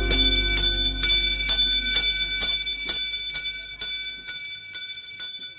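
A bell struck over and over, about two strokes a second, its high ringing tones holding between strokes as the whole sound fades out.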